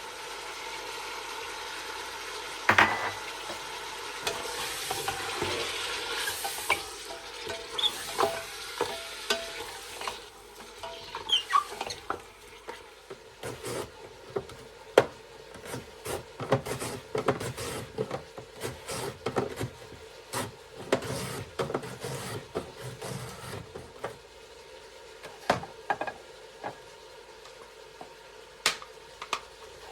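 Food sizzling in a frying pan while a utensil stirs it. A steady sizzle fills the first part; then come quick, dense clicks and scrapes of the utensil against the pan, thinning out near the end.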